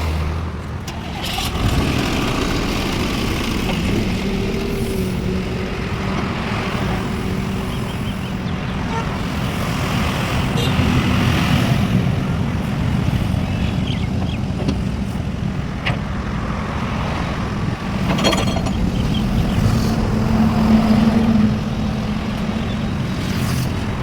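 Diesel engine of a JCB construction machine running just after being started, picking up about a second in and revving briefly near the end.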